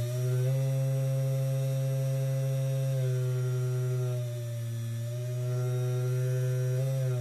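3018 CNC router's DC spindle motor running with a steady hum. Its pitch sags a little a few seconds in and comes back up. Near the end it is switched off and winds down with falling pitch.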